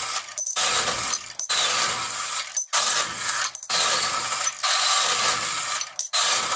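Steel EMT conduit being cut by hand: a rasping metal-on-metal sound in repeated strokes, broken by short pauses about once a second, with a faint metallic ring.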